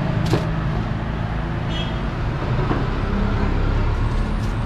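Steady low rumble of road traffic, with a sharp click about a third of a second in.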